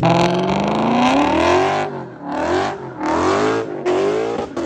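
BMW engine revving through a sport exhaust: one long rev climbing for about two seconds, then three short blips of the throttle.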